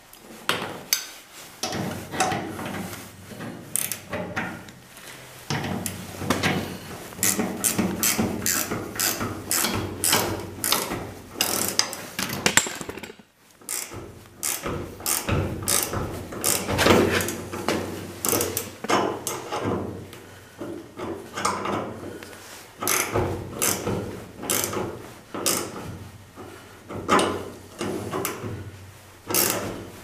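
Ratcheting box-end wrench clicking in repeated strokes as it turns the screw of a hinge pin puller pressing out a tight door hinge pin, with metal-on-metal clicks and clanks from the tool. There is a brief pause partway through.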